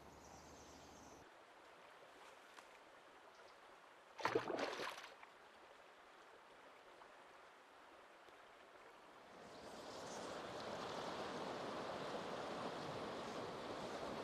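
Flowing river water: a faint rush at first that swells into a steady rush about ten seconds in. A brief, loud burst of noise comes about four seconds in.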